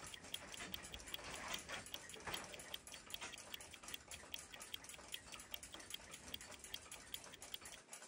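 The escapement of a 1926 Chelsea ship's bell clock ticking faintly, in quick, even ticks. The balance wheel is swinging at close to 360 degrees of amplitude, a lively action now that excess oil has been removed from the pallet fork.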